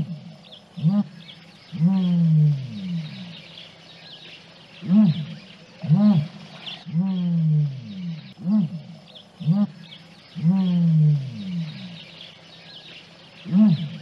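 A large animal giving low calls in runs about a second apart. Most are short and rise and fall in pitch, and three longer ones fall away. Small birds chirp faintly in the background.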